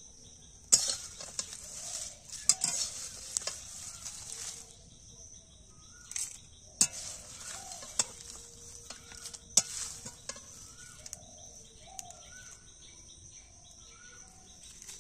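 Metal spatula stirring and scraping dry-roasted spices and crisp leaves in a wok, with irregular sharp clicks of the spatula against the pan and the dry mix rustling, over a steady high hiss.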